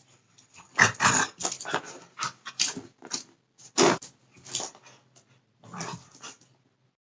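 A dog growling in short, irregular bursts that stop near the end.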